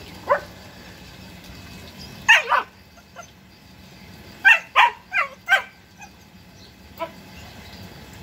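German Shepherd puppies barking and yipping, each short call dropping in pitch: a single yip, a quick pair about two seconds in, then a run of four a couple of seconds later.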